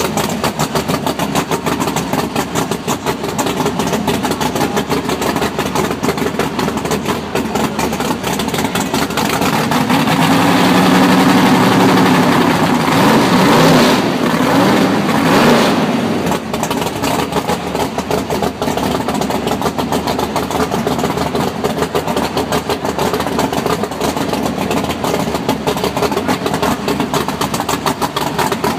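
A 600-cubic-inch engine idling, then revved from about ten seconds in, with two sharper blips near fifteen seconds, before dropping back to idle.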